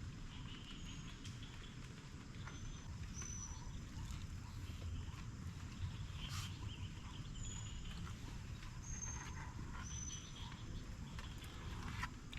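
Rain pattering with scattered drips over a low rumble. Short high chirps from birds or insects repeat every second or two.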